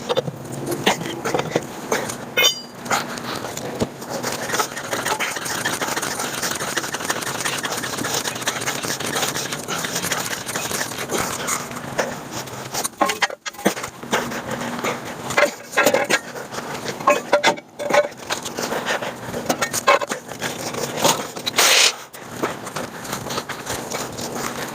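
Irregular clicks, knocks and scrapes of metal tools and parts being handled during hands-on work.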